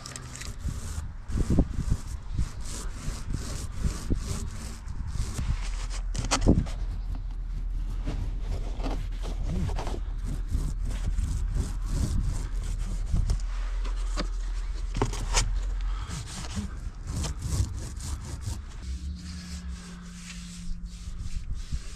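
Paintbrush scrubbing paint onto the textured surface of an electrical box in repeated rubbing strokes, with scattered sharp knocks and clicks of handling. A steady low rumble runs underneath through the middle stretch.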